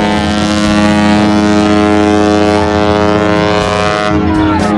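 A ship's deep, steady drone held on many tones at once, with a rushing hiss above it, as a ship sound effect.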